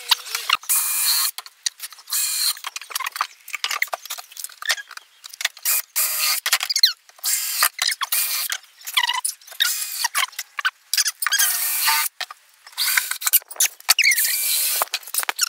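Cordless drill boring pilot holes and driving screws into an MDF cabinet panel, in many short bursts that stop and start. The sound is thin and high-pitched, with squealing whines.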